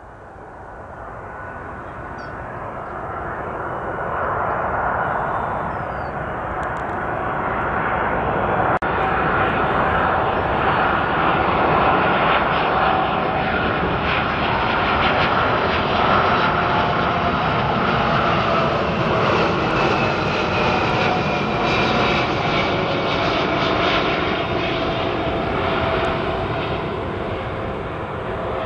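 Airbus A319-132 airliner on final approach with landing gear down, its IAE V2500 turbofan engines growing steadily louder over the first ten seconds as it nears and passes over, then holding loud. A whine in the engine noise slowly drops in pitch.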